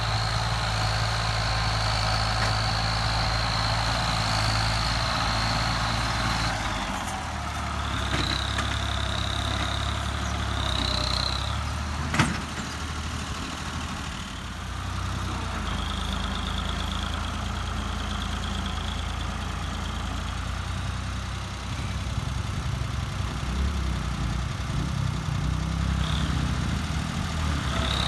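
Ford 4610's three-cylinder diesel engine running under heavy load, pulling a trolley loaded with potatoes. Its note drops about six seconds in and rises again near the end, while a high whine comes and goes over it. A single sharp knock sounds about twelve seconds in.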